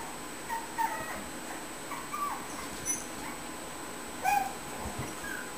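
Puppies whimpering and yipping: a scattering of short, high-pitched squeaks, the loudest about four seconds in.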